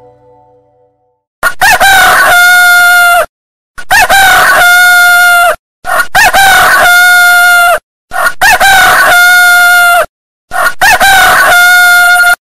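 Rooster crowing five times, each a loud crow of about two seconds: a rising opening and then a long held final note. Every crow stops abruptly with dead silence between, and the crows look alike, as if one crow were repeated.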